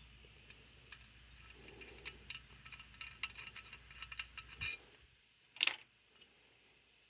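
Small metal carburetor parts and tools clicking and clinking on a workbench as a Thermoquad carburetor is taken apart: a quick run of light clinks, then one louder sharp click near the end.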